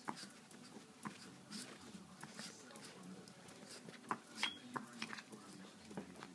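Small dogs scrambling and scuffling around a pot, with scattered clicks and scrapes from their paws and claws.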